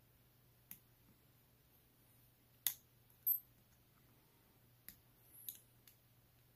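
Sparse, faint clicks of a steel pick prying at a watch's SR626SW button-cell battery and its holder as the battery is worked out, about six small ticks. The sharpest comes about two and a half seconds in, followed at once by a brief high metallic ping.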